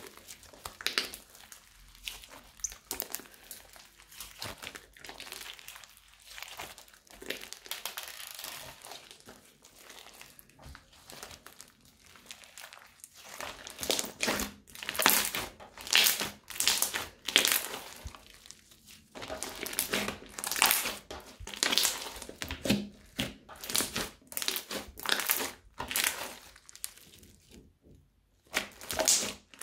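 Crunchy slime studded with small beads being squeezed, kneaded and stretched by hand, giving irregular crackling and crunching. The crackles are sparse at first and become louder and busier from about halfway through.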